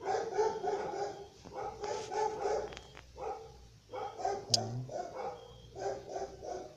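A dog barking repeatedly in short runs of two or three barks, with a single sharp click about four and a half seconds in.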